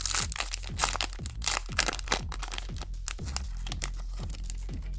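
Foil trading-card booster pack crinkling and tearing open, with sharp crackles mostly in the first couple of seconds, over electronic background music with a steady kick-drum beat.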